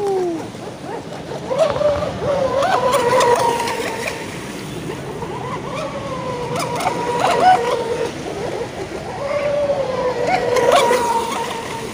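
Radio-controlled model speed boat's motor running flat out, a steady high whine whose pitch drifts up and down as it races, over the hiss and splash of spray from the hull.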